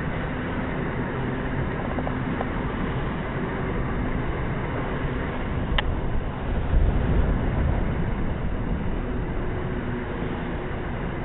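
Train running at speed, heard from an open carriage window: a steady rush of wind and wheel-on-rail rumble. There is a sharp click a little past halfway, then a heavier rumble for a second or two.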